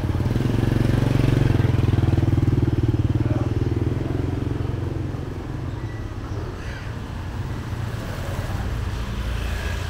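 A motor scooter passes close by at low speed, its small engine running with a fast, even firing beat. It is loudest in the first few seconds, then fades away, leaving a lower street background.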